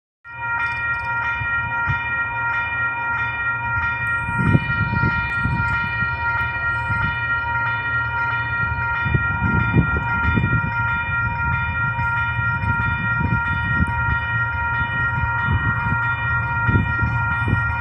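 Railway level-crossing warning bell ringing steadily, a bright metallic ding repeating about twice a second, while the crossing's barriers lower. Low rumbling swells beneath it a few times.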